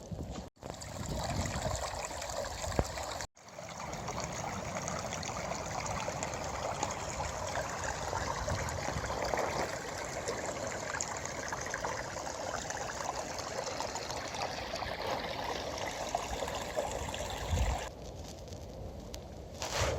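Running water, a small stream trickling steadily, with two brief total dropouts near the start and falling away near the end.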